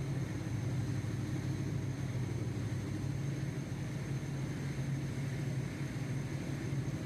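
A steady low rumble of a running engine, even throughout.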